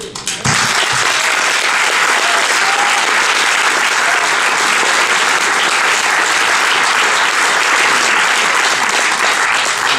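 Audience applauding: dense, steady clapping that breaks out about half a second in and keeps going.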